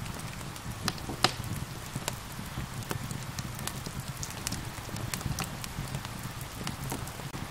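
Wood fire crackling, with scattered sharp pops (the loudest about a second in), over a steady low rumble and the even hiss of gentle rain.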